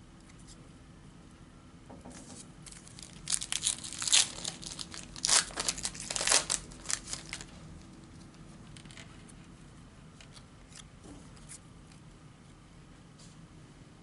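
Foil trading-card pack wrapper being torn open and crinkled: a cluster of sharp ripping and crackling that starts about two seconds in and dies away after about seven seconds, followed by a few light ticks of cards being handled.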